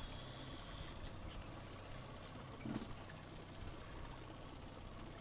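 Boat motor running steadily at trolling speed, a low hum. A brief high hiss fills about the first second, and a few light clicks and a soft thud come near the middle.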